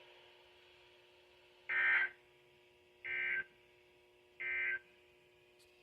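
Three short Emergency Alert System end-of-message data bursts (the digital 'NNNN' code) from a NOAA Weather Radio broadcast, each under half a second and about a second and a half apart. They mark the end of the required weekly test message.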